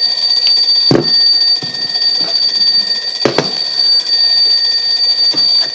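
Several smoke alarms sounding at once, a loud steady high-pitched tone, with two sharp knocks about a second in and about three seconds in.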